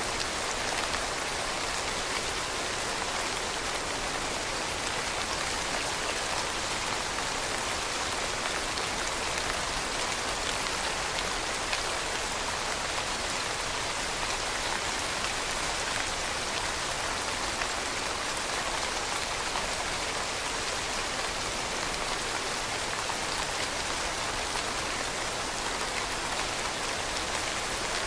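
Steady rain falling on leaves, an even hiss with many small patters of drops.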